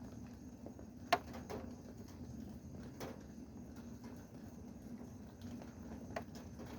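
Rain with a few separate drops landing as sharp taps, the loudest about a second in and another near the end, over a faint steady low hum.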